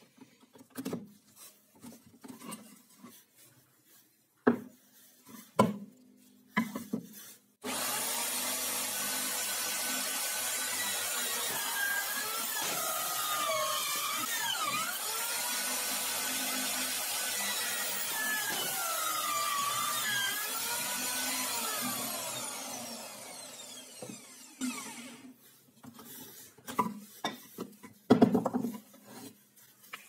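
Drill press with a hole saw cutting discs out of plywood: it starts suddenly about a quarter of the way in, runs and cuts for about fourteen seconds with its pitch dipping and rising as the saw bites, then winds down. Before and after, light knocks of plywood pieces being handled on the jig.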